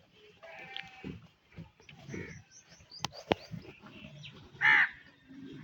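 Farmyard animal and bird calls: several short calls, the loudest a single call about four and a half seconds in, with two sharp clicks about three seconds in over low, irregular rustling.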